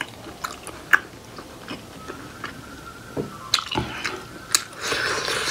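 Close-miked chewing of a steamed buffalo-meat momo: scattered wet mouth clicks and smacks, with a short noisy rush near the end.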